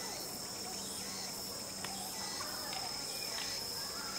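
Steady high-pitched insect trilling, with one faint click a little under two seconds in.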